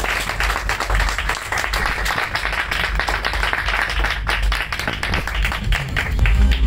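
Audience applauding at the end of a song, many hands clapping at an even level.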